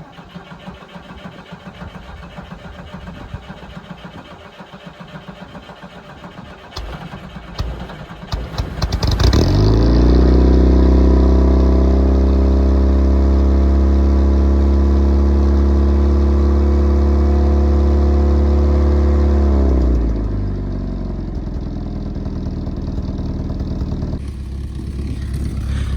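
1965 Volvo PV544 Sport's B20 four-cylinder engine running through an exhaust with one of its two mufflers deleted: an uneven idling putt, then revved up about nine seconds in and held at steady high revs for about ten seconds before dropping back to idle.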